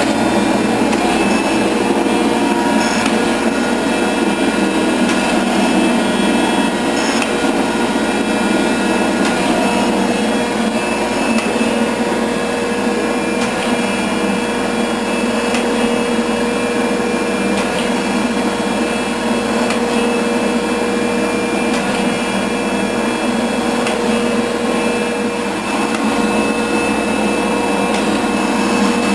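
A 24-inch Rockford hydraulic shaper running steadily. Its hydraulics give a constant hum with a high whine of several fixed tones over machine noise.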